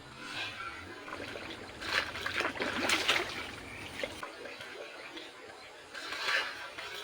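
Water splashing and sloshing in irregular bursts, loudest about two to three and a half seconds in.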